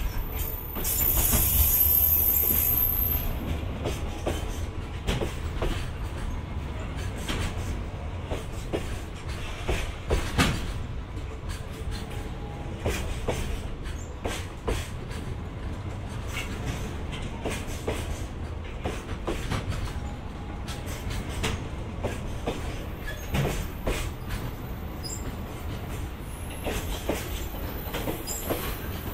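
JR Freight container train's Koki flat wagons rolling past, a steady low rumble of wheels with sharp clacks as the wheels cross rail joints. A louder stretch with a high hiss comes about a second in.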